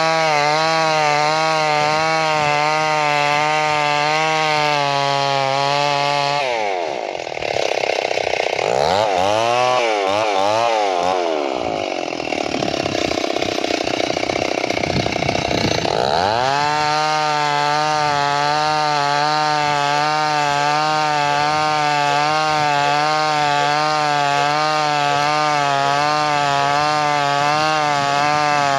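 Chainsaw engine running at high throttle as it cuts wood, holding a steady note. From about seven seconds in, the pitch climbs and swings up and down for several seconds, then settles back to the steady note.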